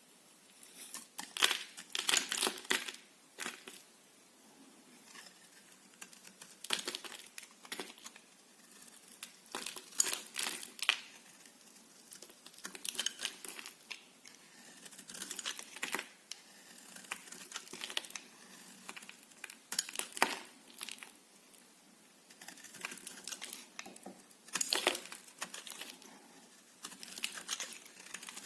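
Knife cutting through soap: crisp, crackling strokes in short bursts every two to three seconds, with quiet between them.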